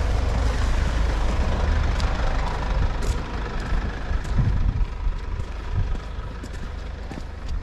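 Strong wind buffeting the microphone, a loud fluttering low rumble, over a fainter rushing hiss that eases off toward the end.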